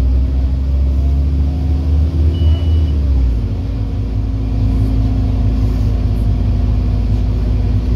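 Scania N230UD OmniCity double-decker's five-cylinder diesel engine driving under way, a steady deep drone heard from the upper deck. The lowest rumble eases about three seconds in, and there is a short high beep just before that.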